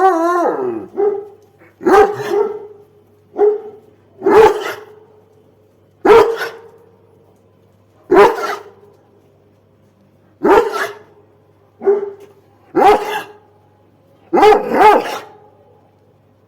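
A hound barking: single barks every one to two seconds, with a double bark near the end. A drawn-out, wavering howl falls away at the very start.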